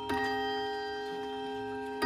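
Howard Miller Barrister chime clock striking the hour. One struck note on its gong rod comes about a tenth of a second in and rings out slowly, one of a series of identical strikes about two seconds apart.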